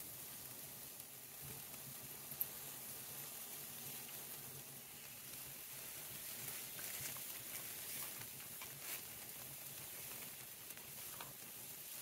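Steak fajitas frying with a faint steady sizzle on a wood stove, with one sharp click about two and a half seconds in.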